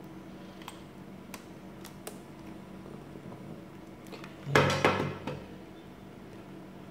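Hard plastic objects being handled: a few faint clicks, then a short burst of clattering and rattling about four and a half seconds in, over a low steady hum.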